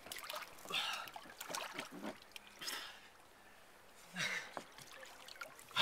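A few faint men's voices, too distant and indistinct to make out words, in short calls about a second in, around two seconds in, and again around four seconds in.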